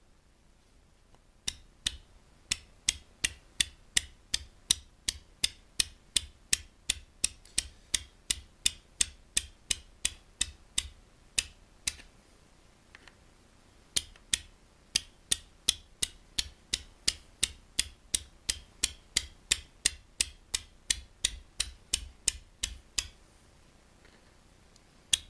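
Hand scraper cutting oil flaking into a cast-iron milling-machine way: a run of short, sharp scraping clicks, about three a second, with a pause of about two seconds in the middle.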